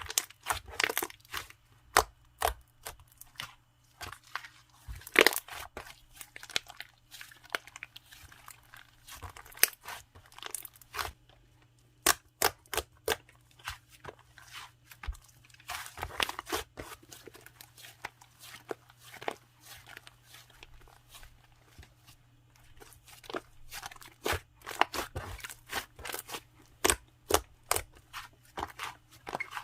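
Hands squeezing and stretching a clay-sherbet slime, giving irregular crisp pops and crackles with brief quiet gaps between handfuls.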